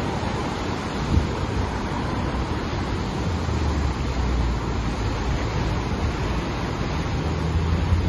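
Heavy ocean surf breaking and washing over a rocky shore: a continuous rush of foaming whitewater. Wind buffets the microphone with a low rumble, including a short thump about a second in.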